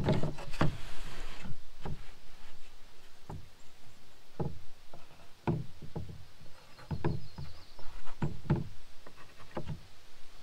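Pine boards knocking and bumping against each other and a plastic folding table as they are laid out and shifted by hand: about a dozen irregular knocks.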